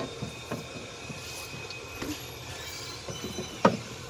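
Light knocks and clicks of plastic toys being handled, with one sharper click near the end.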